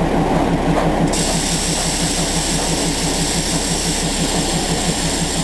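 Steam hissing from a Darjeeling Himalayan Railway B class 0-4-0 tank locomotive, starting suddenly about a second in and holding steady, over a low, even throbbing rhythm.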